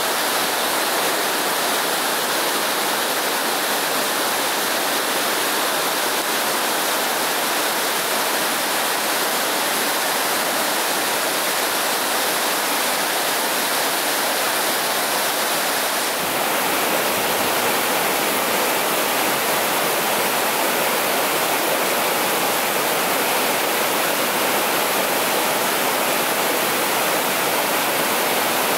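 Rocky mountain stream rushing over boulders in small white-water cascades: a steady, even rush of water, with a slight change in tone about halfway through.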